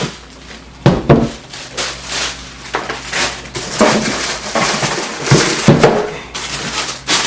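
Things being handled and set down during a roller-skate unboxing: a few scattered knocks and clatters with rustling between them.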